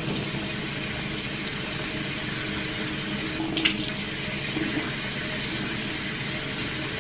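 Bathroom sink tap running steadily, water pouring into the basin.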